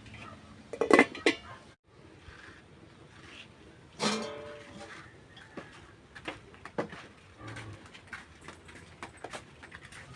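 Metal cookware and utensils clattering: a cluster of loud knocks about a second in, then a sharp clang that rings briefly about four seconds in, followed by scattered lighter taps and clinks.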